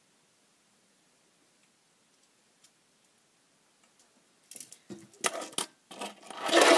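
Grip tape and its plastic packaging being handled, with sharp clicks and then a dense stretch of crinkling. It starts about two thirds of the way in, after near silence.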